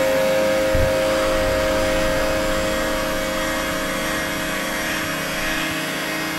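Steady droning hum with a constant held tone, and one soft low thump about a second in.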